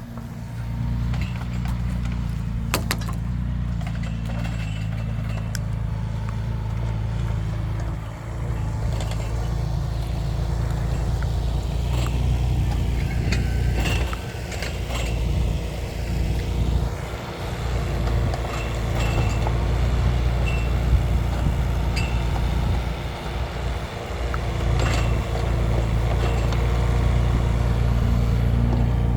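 Mini excavator's diesel engine running steadily while digging, its level dipping briefly a few times, with scattered sharp metallic clanks.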